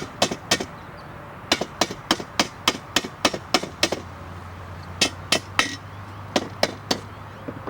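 Light hammer taps driving a plastic corner connector into an aluminium greenhouse window-frame profile: quick bursts of sharp strikes, about three a second, separated by short pauses.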